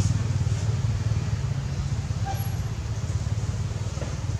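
A steady low rumble, like a motor running at an even pace.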